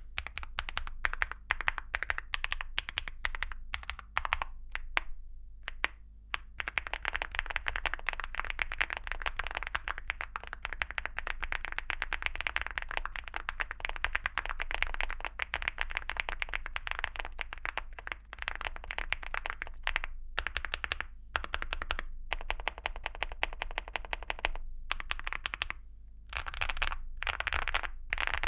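Typing on a Leobog Hi75 mechanical keyboard with HMX Firecracker tactile switches and Cherry-profile ceramic keycaps: a fast, dense run of key clacks with a few short pauses.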